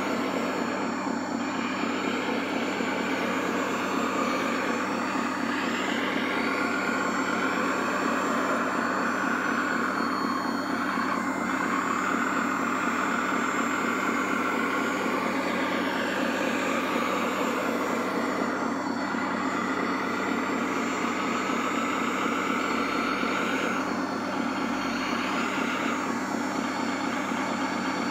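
Radio-controlled scale model wheel loader working: its motors whine, rising and falling in pitch again and again as it drives and lifts its bucket, over a continuous engine-like drone.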